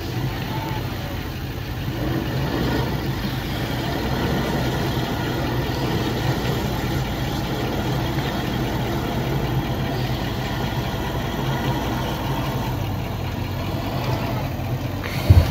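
A vehicle engine running steadily at low revs, as a four-wheel-drive ute tows a caravan slowly through deep mud.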